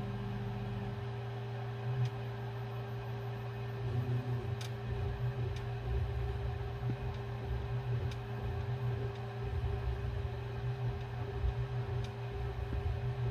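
Ender 3 S1 Pro 3D printer's stepper motors whirring in short, irregular moves as its pen plotter attachment draws with a marker on copper-clad board, over a steady hum, with a few faint clicks.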